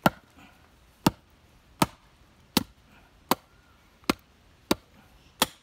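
Axe chopping wood: eight sharp, evenly paced strikes, about one every three quarters of a second.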